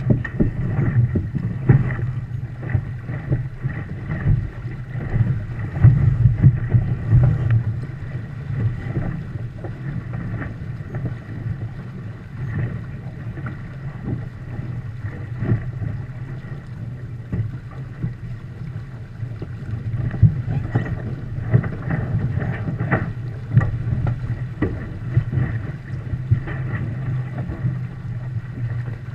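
Wind buffeting the action camera's microphone, over water rushing past and slapping against the hull of a Viper sailboat under way, with irregular knocks from the hull meeting waves; it gets louder twice, around a sixth of the way in and again a bit past the middle.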